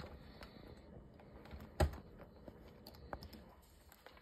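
Light clicks and scrapes of a steel gasket-removal pick working inside a brass refrigerant hose adapter, prying at a tight rubber gasket, with one sharper click about two seconds in.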